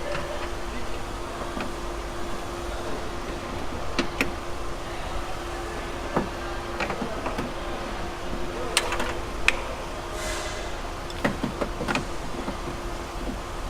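Scattered clicks and knocks of a car door's key lock cylinder and its linkage being worked into place inside the door shell, with a brief scrape about ten seconds in, over a steady faint hum.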